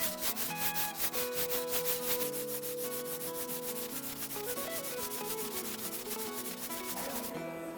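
Cast-iron sole of a Stanley Bailey No. 4 hand plane lapped on sandpaper: quick back-and-forth rubbing strokes in a steady rhythm that stop near the end. Quiet background music plays underneath.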